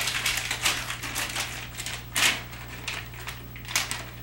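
Dry dog kibble being scooped and handled for a puppy's dinner: irregular rustling and rattling in short bursts, with a louder burst about halfway through and another near the end, over a low steady hum.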